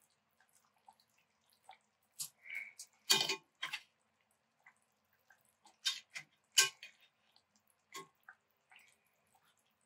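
Scattered clicks and knocks of a utensil against the pot, with wet splashes and drips of sauce, as the braised birria beef and bay leaves are lifted out of the pot. The loudest clatters come a little after 3 seconds and just before 7 seconds.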